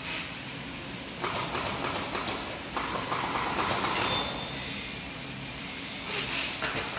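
Aluminium sliding window sash running along its track on its rollers: a steady rolling noise that swells about a second in and eases off toward the end, with a few light knocks near the end.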